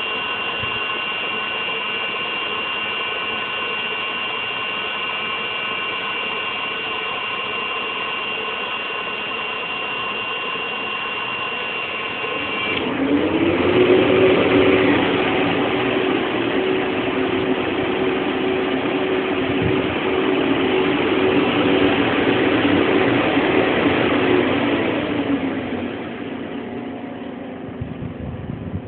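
Fireplace insert's electric blower fans running with a steady whine. About 13 seconds in they speed up: a louder rush of air comes in with a lower hum. Near 25 seconds they drop back down.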